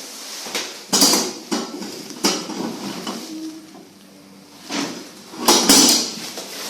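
Passenger lift car travelling up, clanking and rattling, with a sharp metallic knock about a second in, another about two seconds in and a loud cluster of clunks near the end.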